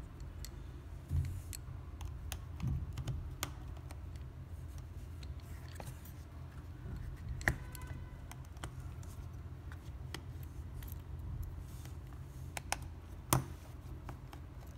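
Scattered small clicks and taps of a precision screwdriver working the screws of a Samsung Galaxy A12's plastic midframe, with light handling of the phone; two clicks stand out, about halfway and near the end. A steady low hum runs underneath.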